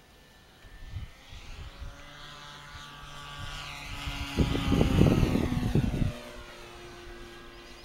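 Electric RC model Pilatus PC-21, with a Scorpion brushless motor turning a 17x12 propeller, making a fast low pass: the motor and propeller whine builds, then drops in pitch as it goes by. A low buffeting rumble comes in at the loudest point, about four to six seconds in.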